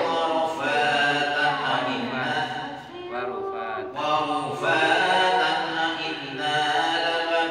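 A man's voice reciting the Qur'an in Arabic in a melodic chant (tilawah) into a microphone, with long drawn-out, ornamented notes and a brief pause for breath about three seconds in.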